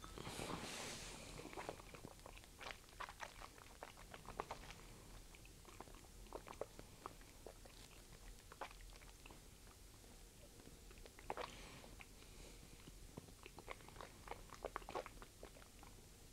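A sip of whisky drawn in with a breathy rush of air, then faint wet mouth clicks and smacks as the whisky is worked around the mouth and tasted. Another breathy rush comes about eleven seconds in.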